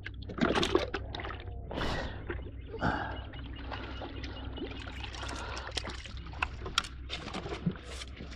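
Water sloshing and trickling, with scattered small clicks and knocks, over a steady low hum.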